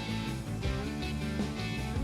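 Background music: a rock track with strummed guitar and a steady beat.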